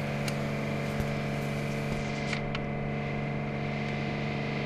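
Steady, even machine hum with a few faint light clicks from hand work on the parts.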